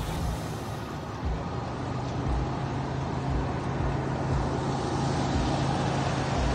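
Off-road 4x4 engine running under load, growing gradually louder, as it pulls a car that has sunk in water out on a tow line.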